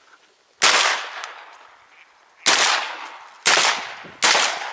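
Four shotgun shots: one about half a second in, then three in quick succession in the second half, each trailing off in a short echo.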